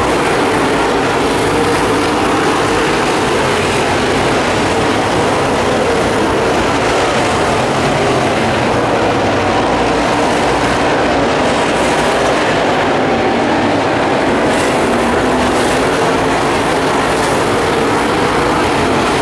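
A pack of dirt late model race cars running their V8 engines at racing speed around a dirt oval, a steady loud roar with no let-up.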